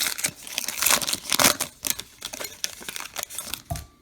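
Baseball card pack wrapper crinkling and tearing as it is pulled open in the hands, a dense run of crackles that is loudest about one and a half seconds in.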